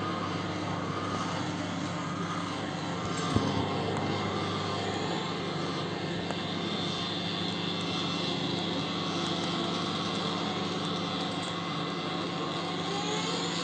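LG microwave oven running with a loud, steady humming drone, a noise put down to a faulty turntable motor. A single sharp click comes about three seconds in.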